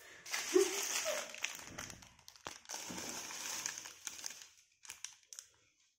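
Clear plastic packaging crinkling and rustling as the parts of a ring light kit are unwrapped and handled, with a few light clicks, dying away about four and a half seconds in.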